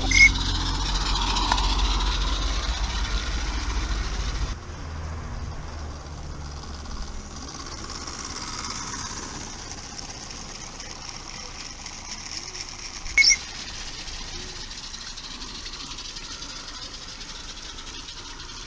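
A small garden-railway train running on outdoor track, its wheels rattling along the rails. A low wind rumble covers the first four seconds or so, and there is a short, high chirp about thirteen seconds in.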